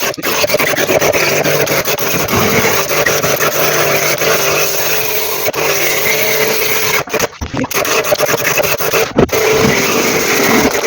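Electric high-pressure jet pump running, its motor humming steadily under the hiss of the water spray while washing out the washing machine's parts; the spray cuts out briefly twice, about seven and nine seconds in.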